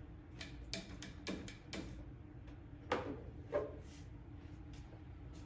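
Hand grease gun being coupled to and worked on a front-axle grease zerk of a zero-turn mower: scattered metallic clicks and knocks, with two louder knocks about three seconds in, over a faint steady hum.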